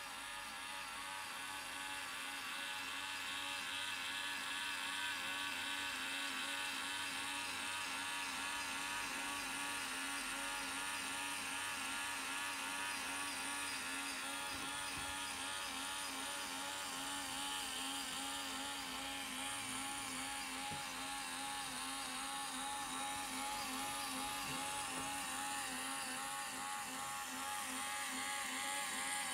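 LEGO electric motor and Technic gear train running a model cakewalk ride: a steady whir whose pitch wavers up and down in a quick, even cycle as the mechanism turns.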